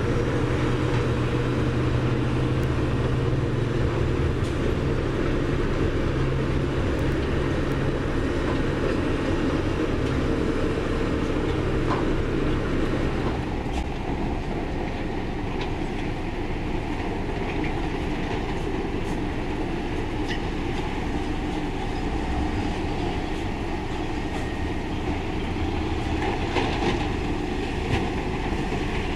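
Komatsu crawler bulldozer's diesel engine running under load as it pushes rock, with its steel tracks clanking. About halfway through, the deep engine note drops away and the machinery sounds further off, with scattered clanks.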